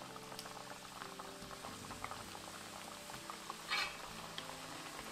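Wheat-flour mathri pieces deep-frying in hot oil in a wok, bubbling and crackling steadily with many small pops. One brief louder noise comes a little before the end.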